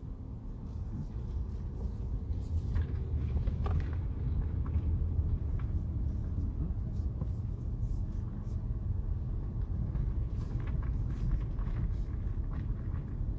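Car in motion heard from inside the cabin: a steady low engine and road rumble that grows a little louder over the first few seconds, with faint scattered light ticks.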